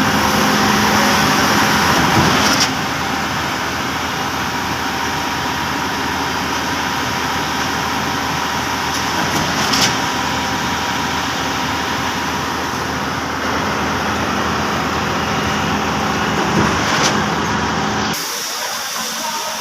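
Mercedes Actros truck-mounted concrete pump working: a steady, loud running of its diesel engine and pumping machinery. A couple of short sharp sounds come about halfway through and again near the end, and the low rumble drops away shortly before the end.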